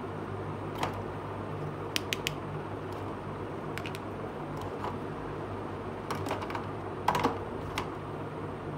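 Small hard plastic toy pieces clicking and tapping as they are handled, in scattered light clicks with a quick triple near the start and a cluster near the end, over a steady low hum.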